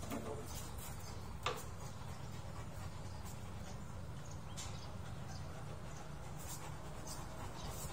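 A dog moving about on a tiled floor: a few light, scattered clicks, the clearest about a second and a half in, over a low steady hum.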